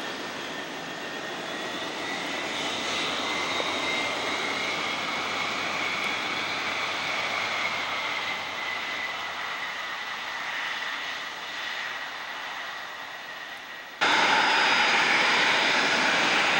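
Lockheed C-141 Starlifter's four TF33 turbofan engines whining and rushing as the jet rolls along the runway. About fourteen seconds in, the sound cuts abruptly to a much louder, closer jet whine as the aircraft taxis toward the listener.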